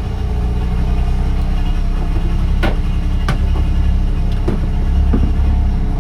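A small boat's motor running steadily under way, with a few sharp knocks partway through.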